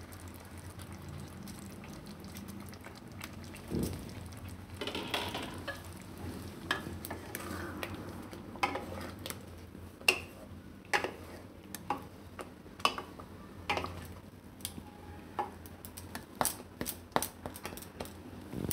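A spoon stirring thick spinach gravy with paneer cubes in a kadai: soft scrapes and light taps against the pan, sparse at first and more frequent in the last few seconds, over a steady low background.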